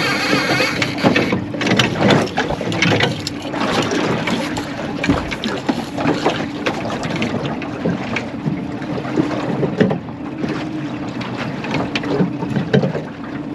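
Small aluminium boat's outboard motor running at trolling speed, then dropping to a lower steady hum about a second in, with water slapping the hull and scattered knocks and clatter in the boat.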